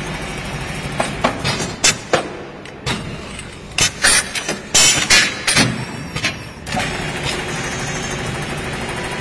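Automatic CNC lathe running with a steady hum, broken about a second in by a run of sharp metallic clacks and knocks as it loads, clamps and cuts a brass blank, settling back to the steady hum near the end.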